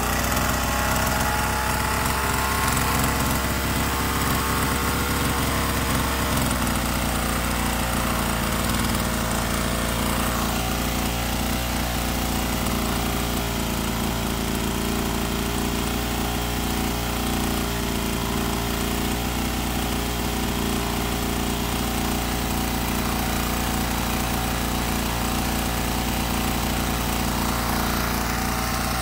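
Small gasoline string-trimmer engine running steadily at speed, driving a car alternator as a 12 V battery-charging generator.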